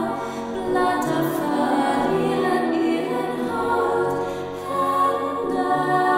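Choir-like vocal music: several voices holding long notes together, the chord shifting every second or two.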